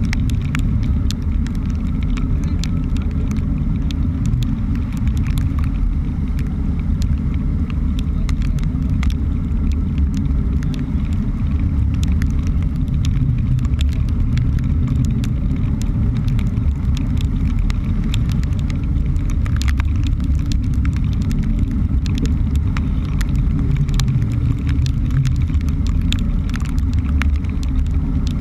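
Sportfishing boat underway in rough sea: a steady, muffled rumble of engine and water. Frequent faint ticks run through it, raindrops striking the camera.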